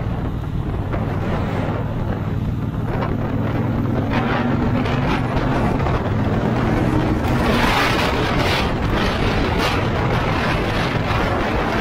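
Triumph Bonneville Speedmaster's 1200 cc parallel-twin engine running under way, with wind rushing over the microphone; the wind noise swells louder about two-thirds of the way through.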